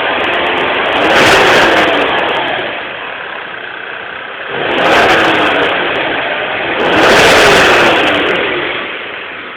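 Fiat Tipo's car engine being revved three times, about a second in, near the middle and shortly after, each rev rising and then falling back to idle.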